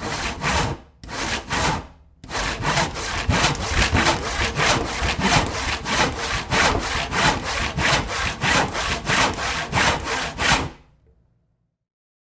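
Handsaw cutting through wood, stroke by stroke. Two slower strokes with pauses come first, then a steady run of quick back-and-forth strokes, about three a second. It stops abruptly a little before the end.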